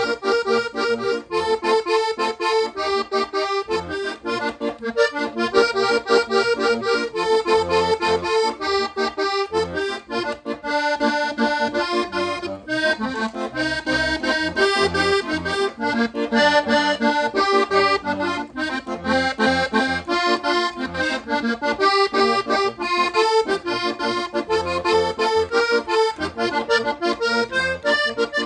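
Hohner Compadre Corona II button accordion, with two reeds per button, playing a lively vallenato melody over bass and chord accompaniment. The tone is more muted and less bright than a vallenato accordion's.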